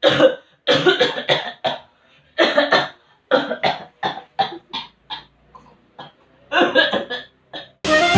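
A person coughing in repeated fits: a few coughs, a pair, then a long run of shorter coughs that grow weaker, and a final cluster of coughs near the end.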